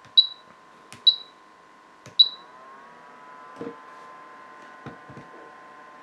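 Compact dehumidifier's control buttons pressed three times about a second apart, each press a click followed by a short high beep, over the steady whine of its small fan. After the third press the fan's whine rises a little in pitch and levels off; a few soft knocks follow.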